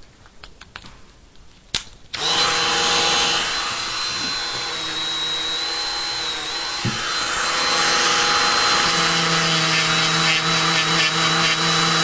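A click, then about two seconds in a Dremel rotary tool starts up and runs steadily with a high whine. Its felt polishing bob, loaded with polishing compound, is buffing the feed ramp of an M4 barrel extension.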